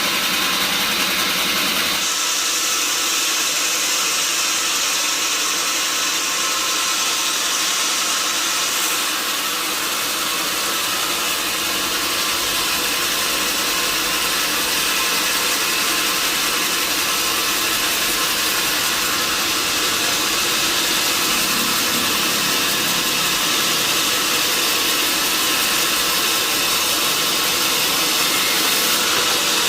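Sawmill machinery running steadily with an engine-like drone and a high hiss, the tone shifting slightly about two seconds in and again near nine seconds.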